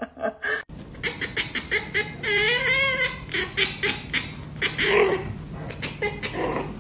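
Domestic cat vocalizing: one wavering, drawn-out cry about two seconds in, among a run of short, quick sounds.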